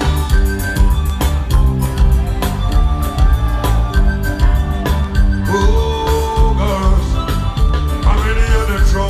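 Live band music played loud through a PA, with a heavy bass line and a steady drum beat; a held melody line, likely a voice, comes in about halfway through and again near the end.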